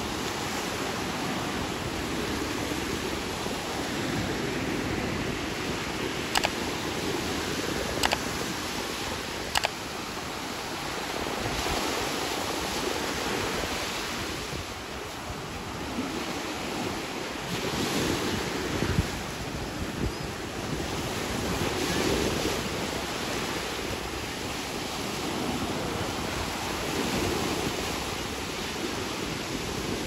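Small waves washing onto a sandy beach, a steady rush of surf that swells and eases, with some wind on the microphone. Three sharp clicks come about a second and a half apart roughly a quarter of the way in.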